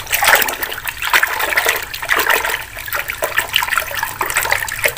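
Water sloshing and splashing in a plastic bucket as a hand scrubs a toy dump truck under the soapy water, with irregular splashes throughout.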